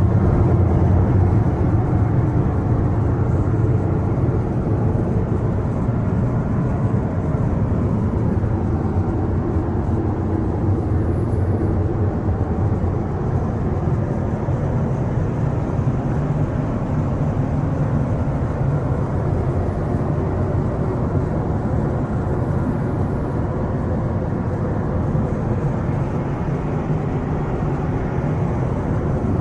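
Steady, even roar of a Boeing 777-300ER airliner's engines and airflow heard from inside the cabin.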